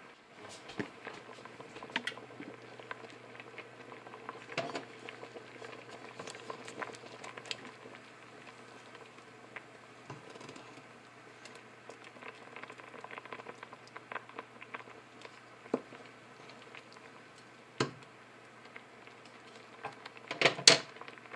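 Thick peach barbecue sauce heating toward a boil in a stainless steel pot, bubbling with many small scattered pops, over a faint steady hum. A few sharper knocks stand out, the loudest near the end.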